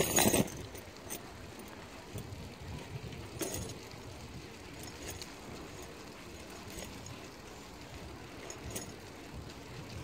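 Bicycles rolling on wet asphalt: steady tyre and wind noise with occasional light clinks and rattles from the bike. A brief loud clatter comes right at the start, and a smaller one about three and a half seconds in.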